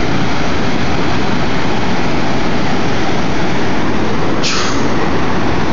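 Ocean surf breaking and washing in, a steady loud roar, with a brief louder hiss about four and a half seconds in.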